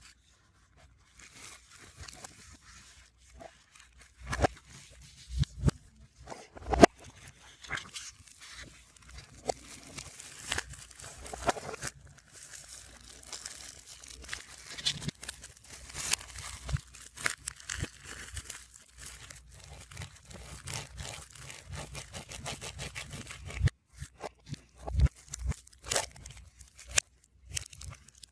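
Album packaging being handled, played backwards: crinkling plastic and paper rustling, broken by sharp clicks and a few louder knocks of the album's parts set down or pressed together.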